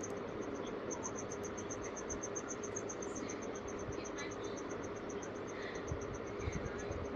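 Cricket chirping: a fast, even train of high pulses over a steady low hum and hiss.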